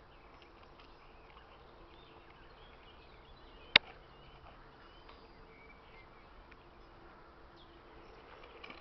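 Faint outdoor background with insects buzzing. It is broken by a single sharp knock about four seconds in, and a few light clicks near the end.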